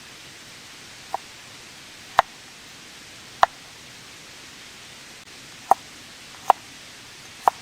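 Steady hiss of rain with six sharp, separate pops or ticks at uneven intervals, each one short and clearly louder than the rain.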